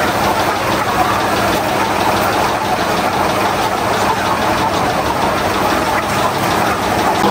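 A motor running steadily: a constant, even noise with a low hum under it.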